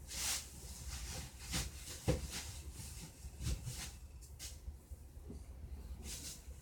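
Scattered knocks and clicks with a couple of brief hissing sounds, over a low steady rumble.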